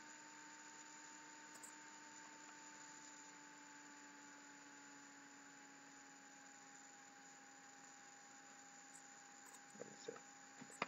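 Near silence: a faint steady hum with hiss from a laptop picked up by the microphone, its higher tone sinking slightly in pitch.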